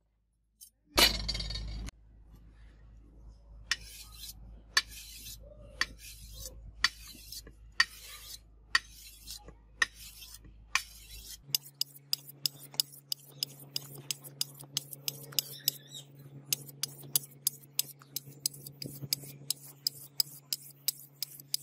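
Hand-held sharpening stone drawn along the edge of a steel sword blade: short scraping strokes, about one a second at first, then quicker at several a second after about eleven seconds, over a low hum. A brief loud noise about a second in is the loudest moment.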